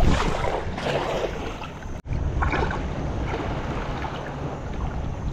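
Sea waves washing against shore rocks, with wind buffeting the microphone. The sound drops out for an instant about two seconds in.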